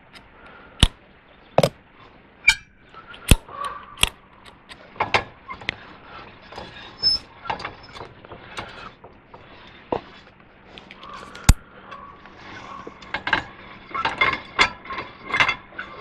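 Irregular metal clicks and taps from a hand tool working on the steel threaded rod of a homemade sawmill blade tensioner, some with a short metallic ring.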